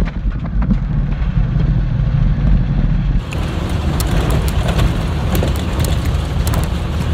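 Converted school bus driving slowly over a rough dirt road: a steady low rumble of engine and tyres, with scattered rattles and knocks from about four seconds in.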